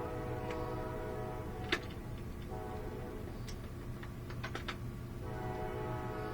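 Engine of a flatbed tow truck running with a steady droning hum that fades and comes back strongly near the end, with a few sharp metallic clicks over it.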